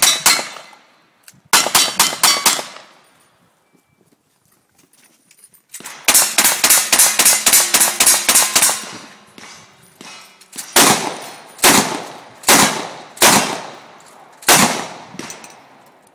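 Gunfire from a cowboy action shooting stage, each shot sharp and echoing. A few quick strings of shots come first, then a pause, then a long fast run of about a dozen shots, then single shots about a second apart near the end.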